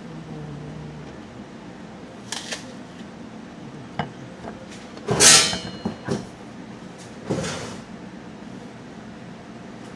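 Several short knocks and rustles from things being handled at the table during a meal, the loudest about five seconds in.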